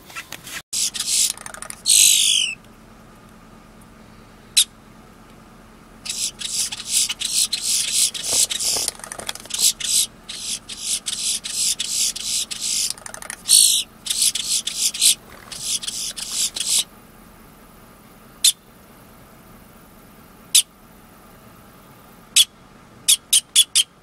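Male boat-tailed grackle calling. It gives bursts of rapid, harsh clicking rattles with a couple of short squealing notes, then sharp single clacks a second or two apart, and a quick run of clacks near the end.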